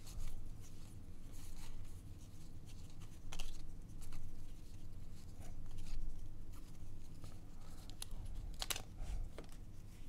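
1990 Upper Deck baseball cards being flipped through by hand: light scratchy slides and flicks of card stock against the stack, with a sharper flick about three and a half seconds in and another near nine seconds.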